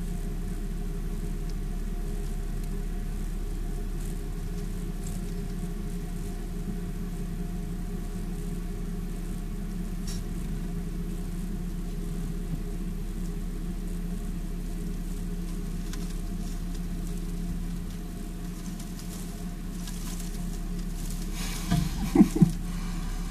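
Steady low hum that does not change, with a couple of brief louder sounds near the end.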